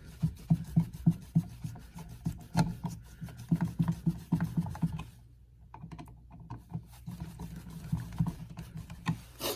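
Screwdriver turning an outlet's mounting screws into the electrical box: a quick run of small metal clicks and scrapes, thinning out about five seconds in, then a few more clicks and a sharper click near the end.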